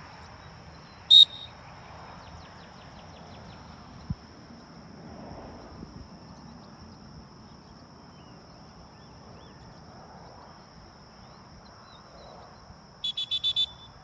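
Dog-training whistle: one sharp blast about a second in, the single-blast sit signal to a retriever being handled on a blind, then a quick string of about five short toots near the end, the come-in call. A steady high insect drone runs underneath.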